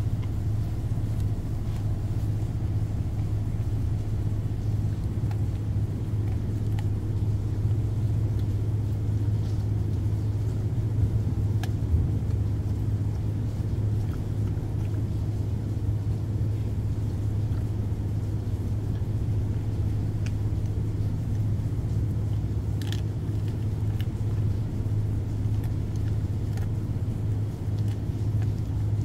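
Steady low drone of a ship's engine machinery running, with a few faint clicks from a dog chewing a piece of food.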